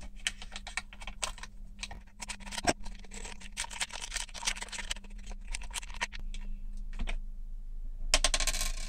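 Metallized anti-static foil bags crinkling and crackling as they are handled and opened, in a quick run of small crackles. A denser burst of crinkling comes near the end as the circuit board is drawn out of its bag. A faint steady low hum sits underneath.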